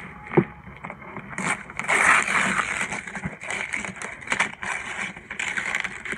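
Gift-wrapping paper being torn and crinkled as a present is unwrapped: a light knock near the start, then a dense run of crackling and rustling from about a second and a half in.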